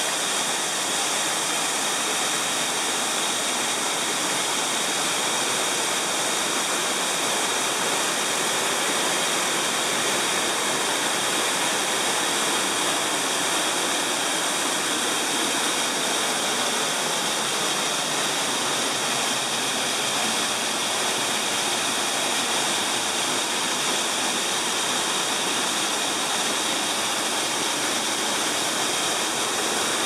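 Waterfall: a steady, unbroken rush of water falling and splashing into a pool.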